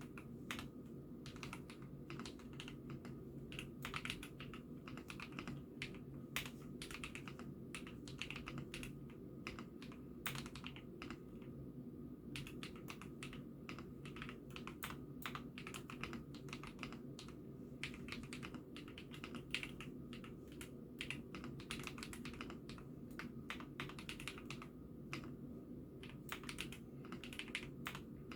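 Continuous typing on a hot-swap IKKI68 Aurora mechanical keyboard: a dense, irregular stream of keystroke clacks, easing off briefly about halfway through. Picked up through a phone microphone, over a steady low background hum.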